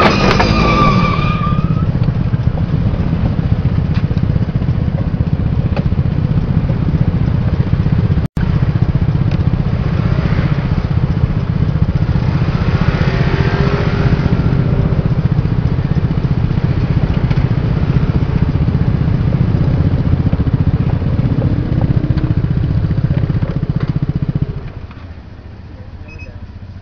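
A motor scooter's engine runs steadily right beside the microphone as a low rumble, and it cuts off abruptly about 25 seconds in. At the very start, just after the collision, there is a brief falling squeal.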